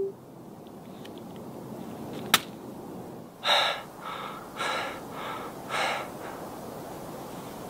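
A person gasping for breath: five short, heavy breaths about half a second apart, after a single sharp click, over a steady low hiss.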